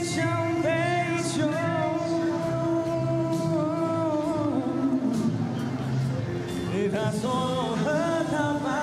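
A man singing a slow Mandarin ballad into a microphone over an instrumental backing track, holding long notes; after a short pause a new phrase begins near the end.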